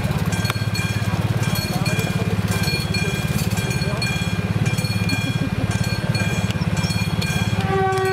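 A motorcycle engine idling close by with a fast, even pulse, over the repeated ringing of a railway level-crossing warning bell that signals a train approaching. Near the end a steady lower tone sets in.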